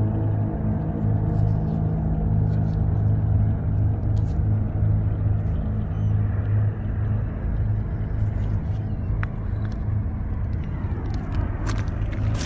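Steady low engine rumble that pulses slightly, with a few light clicks near the end.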